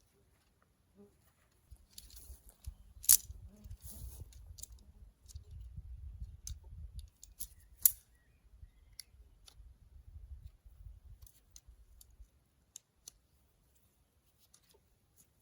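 Scattered clicks and small rattles of camping gear being handled during camp setup, with two louder sharp clicks about three and eight seconds in.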